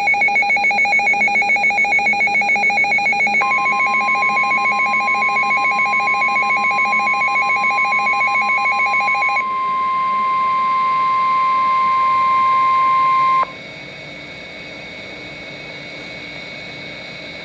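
A NOAA Weather Radio alert: the receiver's alarm beeps rapidly, about four times a second, and over it the 1050 Hz warning alarm tone sounds. The steady tone starts about three seconds in. The beeping stops about nine seconds in, and the tone cuts off sharply about thirteen seconds in, leaving a faint steady background from the radio.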